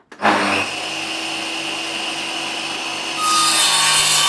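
Power saw with a circular blade cutting through wood. It grows louder and harsher about three seconds in.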